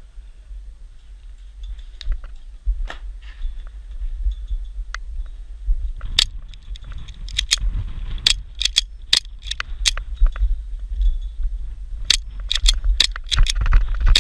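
Airsoft guns firing: sharp cracks, scattered at first, then louder and more frequent from about halfway, with a quick run of shots near the end. A constant low rumble of wind or handling noise on the microphone runs underneath.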